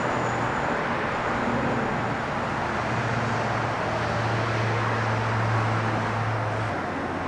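Steady low mechanical hum over a wide background hiss, like an engine or machinery running nearby; the hum drops slightly in pitch near the end.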